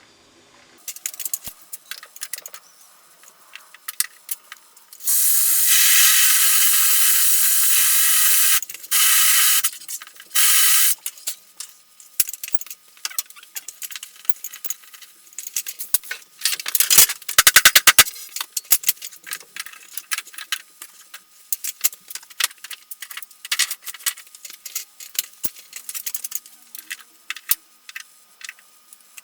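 A loud spraying hiss in three bursts, one about three and a half seconds long and two short ones just after. Around them are many small clicks and clatters, with a quick run of sharp ticks about halfway through.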